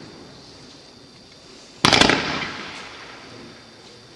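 A 1.2-inch Yellow Tail Roman candle firing one shot about two seconds in: a sharp report made of a few quick cracks, then a hiss that fades over about a second as the yellow-tailed star climbs.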